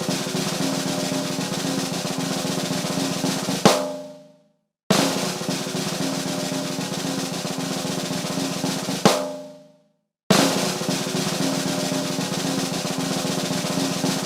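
Snare drum roll, played as a repeated sound effect: a sustained roll of about four seconds closing on a single accented hit that rings out, then a short silence before the next. There are two full rolls, and a third is still running at the end.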